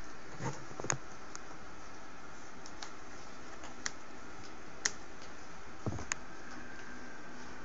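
A handful of sharp, irregular clicks as a hand works a small switch on a homemade electronic prop, with two dull knocks, one about half a second in and one about six seconds in, over a steady hiss.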